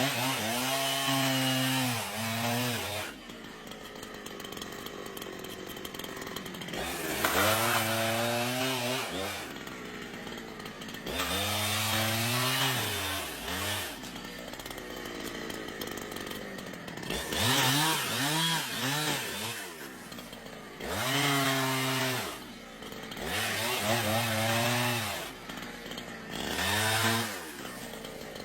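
Two-stroke chainsaw revved about seven times while cutting wood, each rev rising and then sagging in pitch over two to three seconds, with quieter lower running between the revs.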